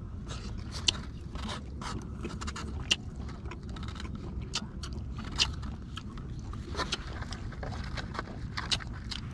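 Chopsticks scraping and tapping on a styrofoam takeaway box, a scatter of light clicks and scrapes, over a steady low rumble.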